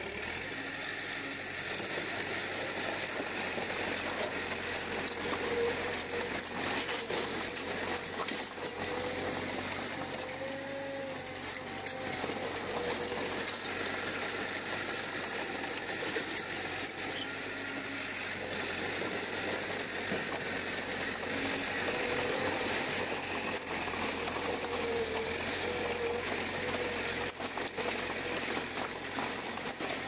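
Komatsu D31P crawler bulldozer's diesel engine running steadily while working, with rapid clattering and rattling from the machine throughout and the engine note rising a little now and then.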